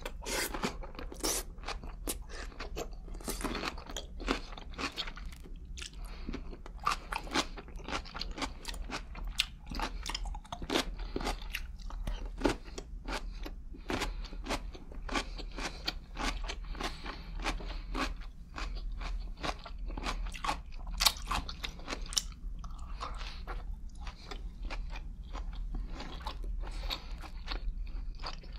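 Close-miked chewing of crunchy pickles: wet crunches and mouth clicks in an irregular, continuous stream.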